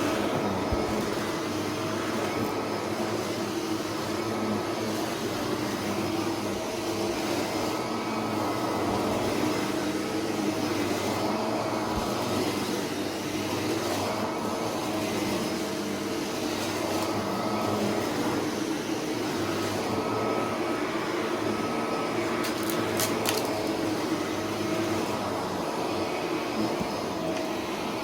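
Shark vacuum cleaner running steadily with a constant motor hum while it sucks up confetti and glitter from a rug. A few sharp ticks sound about three-quarters of the way through, as debris goes up the vacuum.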